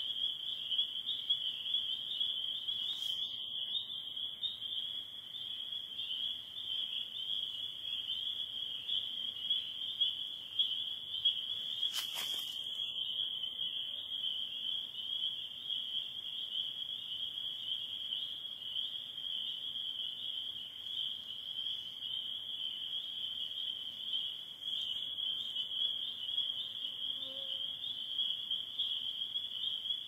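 Spring peeper chorus: many high-pitched peeps overlapping into one steady, shrill band. A sharp click sounds once about twelve seconds in.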